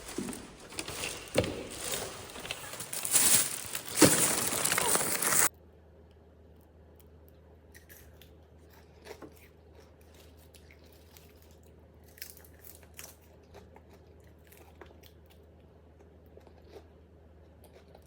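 Crunching and crinkling handling noises with sharp clicks for about five seconds. They stop abruptly, leaving a quiet background with a faint hum and occasional soft clicks.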